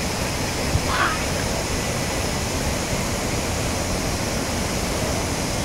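Flash floodwater rushing down a wadi: a steady rushing noise of churning muddy water.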